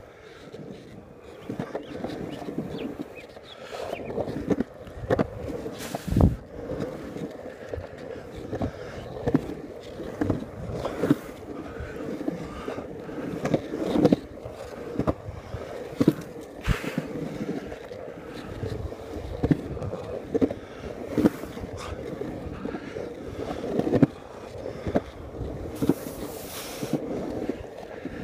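Skateboard wheels rolling over concrete with a steady rumble, broken by sharp knocks as the wheels cross seams and edges in the slabs; the heaviest knock comes about six seconds in.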